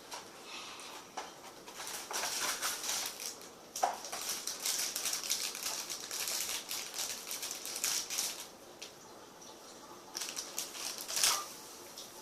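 Crinkling and rustling of snack packaging being handled, in two stretches: from about two seconds in until past eight seconds, and again briefly near the end, with a small knock about four seconds in.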